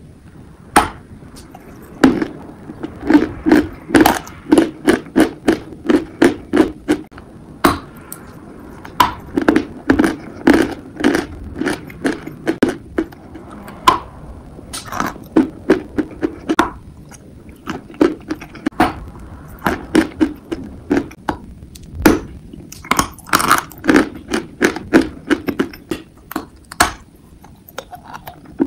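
Biting and chewing a hard block of dry eating chalk: runs of sharp crunches at about two a second, with short pauses between. The chalk is hard to bite off and stays crunchy and grainy as it is chewed.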